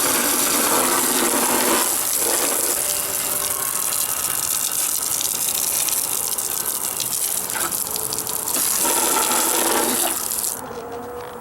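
Garden hose spraying water onto a TV's plastic cabinet and chassis: a steady hiss of spray that changes a little in tone as it moves over the surfaces, then cuts off near the end.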